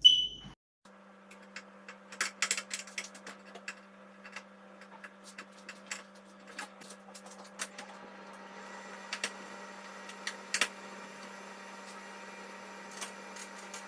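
Scattered light clicks and taps of screws and a plastic TV back cover being handled and fitted, over a steady low hum; a wider hiss joins the hum about eight seconds in.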